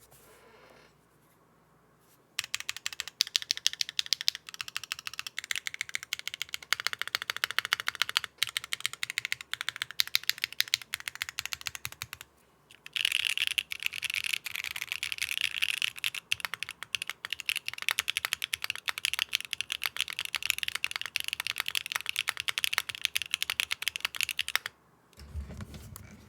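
Fast typing on a Neo65 mechanical keyboard fitted with Akko × HMX Stellar Rose linear switches: a quick run of deep, fairly quiet clacks. The typing starts about two seconds in, pauses briefly near the middle, then runs on until just before the end.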